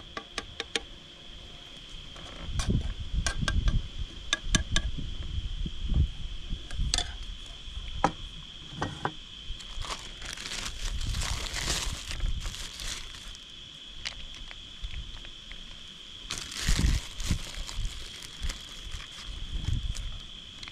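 Food prep by hand: a metal spoon clinking and scraping chili out of a small metal pot in the first few seconds, then a zip-top plastic bag crinkling in bursts as shredded cheese is pulled out and sprinkled. A steady high-pitched tone runs underneath throughout.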